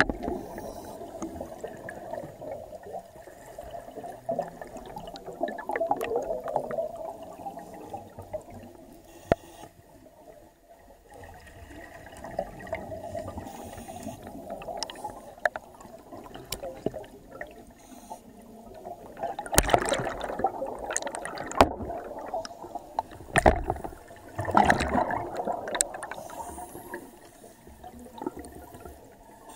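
Divers' exhaust bubbles bubbling and gurgling, heard underwater, in bursts separated by quieter stretches; the loudest bursts come about two-thirds of the way through.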